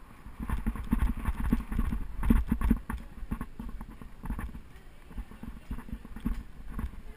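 Bicycle rattling and knocking in quick, irregular jolts as it is ridden, with wind buffeting the microphone. The knocks are heaviest in the first three seconds and lighter after.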